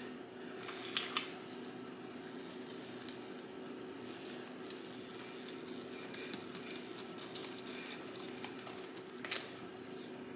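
Small handheld mixer whirring steadily as it blends protein powder, peanut butter and almond milk in a container. A couple of light clicks come about a second in, and a sharper knock comes near the end.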